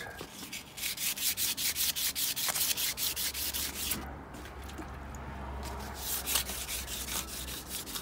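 Fine wet-and-dry abrasive paper rubbed by hand over a bicycle frame's paint in quick back-and-forth strokes, several a second, with a softer stretch in the middle. This is light sanding that takes the weathered surface layer off thin original paint.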